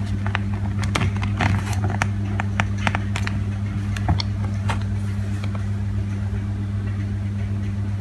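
Small plastic clicks and taps of a Nokia 3220 being handled and its power button pressed, scattered over the first five or so seconds, over a steady low hum.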